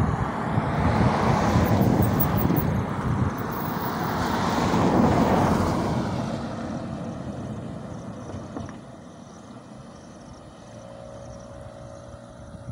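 Road traffic going by: two vehicles pass in the first half, each a rush of tyre and engine noise that swells and fades, then quieter road noise with a faint steady hum near the end.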